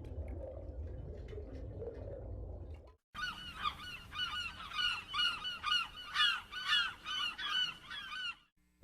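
A low rumbling noise, then, after about three seconds, a bird's honking calls repeated about twice a second, each a short curving squawk, stopping shortly before the end.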